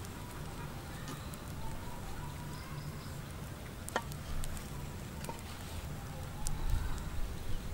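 Handling noise from a bamboo skewer being pushed through a whole raw plucked chicken on a metal tray: faint scraping and crackling with a sharp click about four seconds in and a few knocks near the end, over a steady low rumble.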